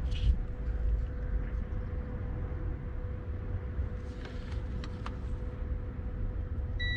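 Steady low background rumble with a few faint clicks as meter probes are handled. Right at the end a digital multimeter's continuity beep starts, a steady high tone showing the power-feed wire has continuity.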